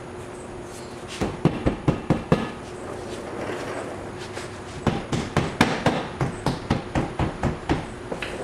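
Repeated hammer blows on car parts: a quick run of about five strikes, then, after a pause, a steady run of about a dozen at roughly four a second. A steady hum continues underneath.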